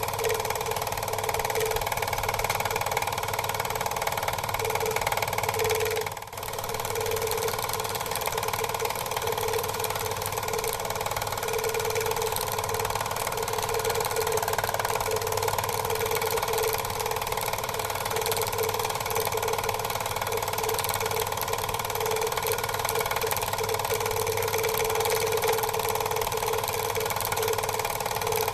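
Quadcopter drone's motors and propellers whirring steadily, dipping briefly about six seconds in.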